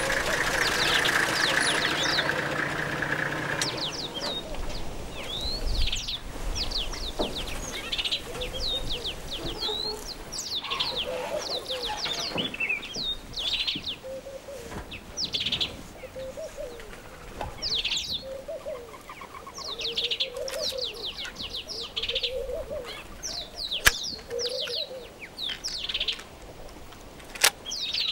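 A vehicle engine idling, dying away about four seconds in, then wild birds calling on and off: quick high chirps and lower warbling calls. Two sharp clicks stand out near the end.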